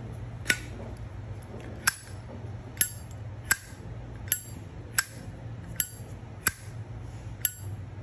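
Lid of a used 2005 black-chrome Zippo lighter flicked open and snapped shut over and over: about ten sharp metallic clicks, roughly one every three-quarters of a second. A fairly nice lid sound.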